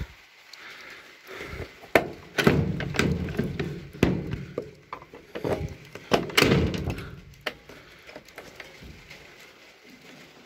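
A string of knocks and thuds from a PVC window frame being handled and pushed on by hand, with rustling in between; the sharpest knock comes about two seconds in, and the knocking thins out over the last few seconds.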